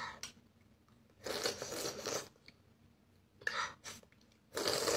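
A young child eating porridge from a spoon, making three short bursts of eating noise, the longest about a second, with a light click at the start.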